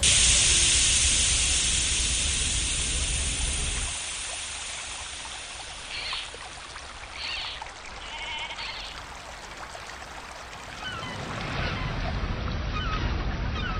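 Running water of a stream, loudest at the start and fading over the first few seconds. Three short high calls come around the middle, and small bird chirps near the end.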